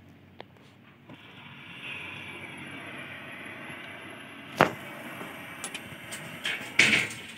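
LPG cutting torch hissing steadily, swelling from about a second in as the gas flow is opened up. A sharp pop about halfway through and a louder burst near the end.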